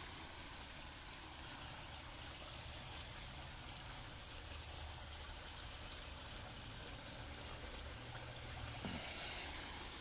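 Garden pond waterfall and fountain trickling, faint and steady.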